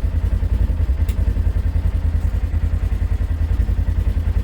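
Polaris General side-by-side's engine idling steadily, a low pulsing rumble.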